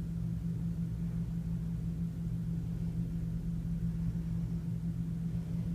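A steady low mechanical hum with rumble beneath it.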